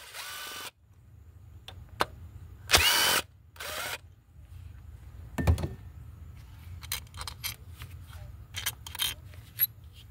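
Cordless drill-driver with a T30 Torx bit spinning out the screws that hold an ignition coil down: three short bursts of motor whine, one at the start and two around three to four seconds in. Scattered light clicks and knocks follow.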